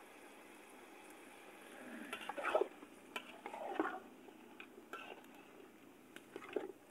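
Metal ladle stirring chicken pieces in a large aluminium pot: a few soft scrapes and light clinks against the pot from about two seconds in.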